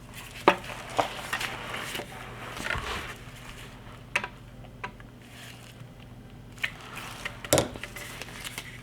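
Screwdriver snugging up the action screws of a Mosin-Nagant rifle in its wooden stock: scattered small clicks and scrapes of metal on metal, with a louder click near the end.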